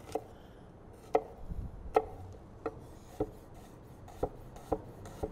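Chef's knife mincing a shallot on a wooden cutting board: about eight separate, unevenly spaced knocks of the blade on the board.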